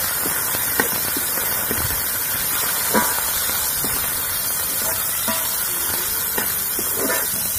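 Chana dal frying in mustard oil in a metal kadai: a steady sizzling hiss, with a metal spatula scraping and knocking against the pan about five times as it is stirred.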